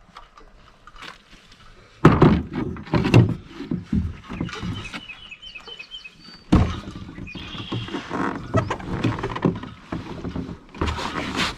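Hollow knocks and thumps of a canoe hull as it is boarded or launched at the water's edge, with one loud knock about two seconds in and another about six and a half seconds in, and scraping clatter between.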